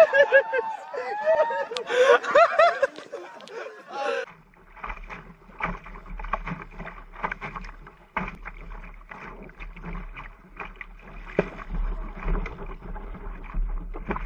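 Excited voices for about the first four seconds, then an abrupt change to a small sailing dinghy's hull cutting through choppy water: waves splashing and slapping against the bow, over a steady low rumble of wind on the microphone.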